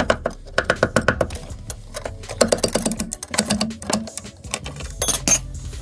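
A metal scraper scraping and clicking against a 3D printer's glass build plate as a printed vase is pried loose, with rapid small ticks and a sharper clatter about five seconds in.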